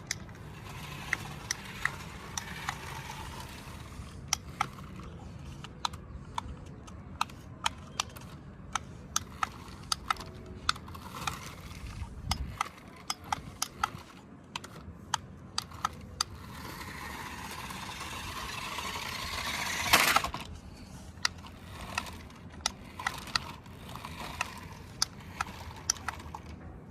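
A toy RC bus's small electric motor and plastic gears whirring in spurts, with many sharp plastic clicks and knocks. The whirring builds to a loud burst about twenty seconds in.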